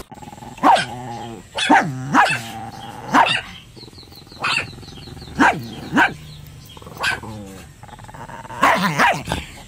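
Two dogs play-fighting, giving about ten short barks and yelps at uneven intervals, several close together near the end.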